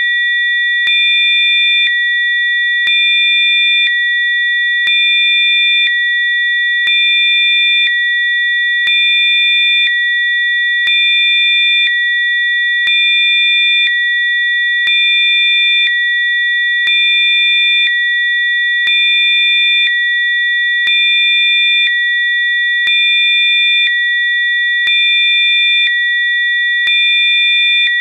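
Electronically generated Rife frequency tones: several steady, high-pitched pure tones sounding together. A faint click and a slight change in the mix come about every second, with a small step up in loudness every other second.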